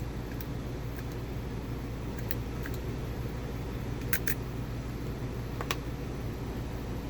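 Lock-picking tools clicking sparsely against a TrioVing-style 7-pin cylinder with trampoline pins: a few sharp metal clicks, two close together about four seconds in, over a steady low hum.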